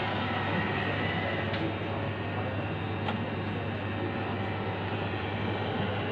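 Robot vacuum running: a steady motor whir over a constant low hum, with a couple of faint ticks.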